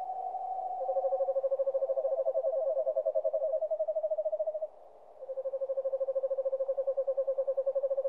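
Owls giving long, rapidly pulsed trills, each held on one pitch. Two or three overlap at slightly different pitches. After a short break a little past halfway, a single trill runs on to the end.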